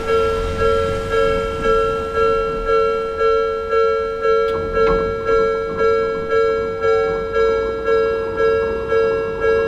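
Japanese level-crossing warning bell ringing, a repeating ding at about two strokes a second, each stroke dying away before the next.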